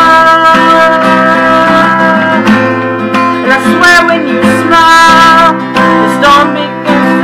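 Acoustic guitar strummed and plucked as song accompaniment, with a singing voice holding and bending long wordless notes over it.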